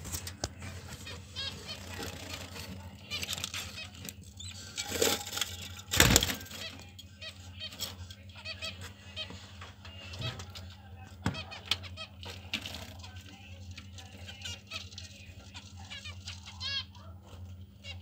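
Budgerigars chirping, a run of short, high, repeated calls, over a steady low hum. One loud bump about six seconds in is the loudest sound.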